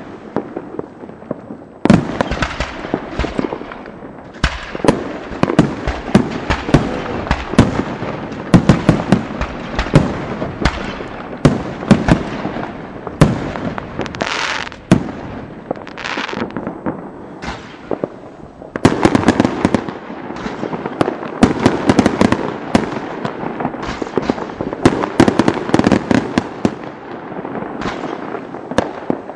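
Fireworks display: a near-continuous string of aerial shell bursts and bangs, with a brief hiss about halfway through and a denser run of rapid bangs in the second half.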